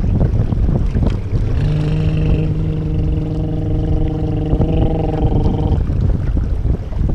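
Wind buffeting the microphone and choppy water rushing and splashing against a small boat under way. In the middle, for about four seconds, a steady droning tone of several pitches at once sounds over the rush and then stops.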